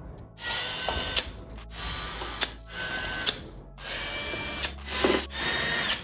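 Cordless drill-driver with a 7-point T25 security bit backing out screws from an aluminium scooter deck. It runs in repeated bursts of about a second each, with a motor whine.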